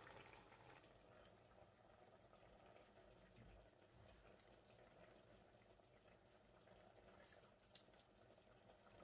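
Near silence, with the faint, steady sound of a pot of vinegar-based fish stew simmering on the hob.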